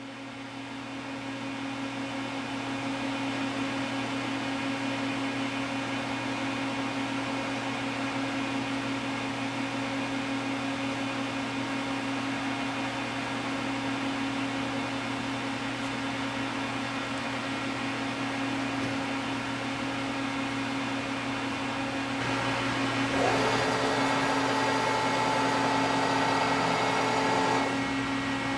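Mori Seiki TL-40A CNC lathe running: a steady machine hum with a strong low tone that swells in over the first couple of seconds. About two-thirds of the way through it grows louder, and a higher whine joins for about four seconds before cutting off.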